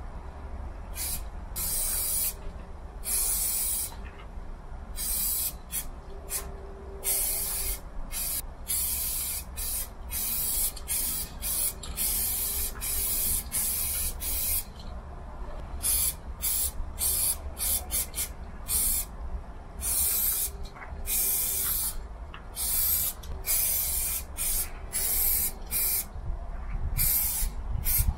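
Aerosol spray paint can hissing in repeated bursts, some brief and some a couple of seconds long, with short gaps as the nozzle is pressed and released. A steady low rumble runs underneath.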